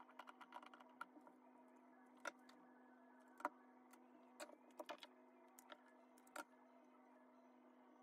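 Faint, scattered clicks and taps of small metal parts and tools being handled on a wooden workbench while a miniature RC car chassis is assembled. A steady low hum runs underneath.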